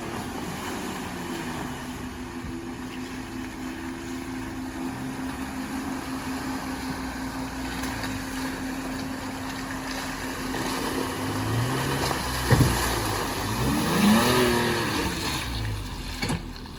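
Off-road vehicle engine revving as it works through a wet trail section, its pitch rising and falling with the throttle. It gets louder in the last few seconds, with a single sharp knock about twelve seconds in.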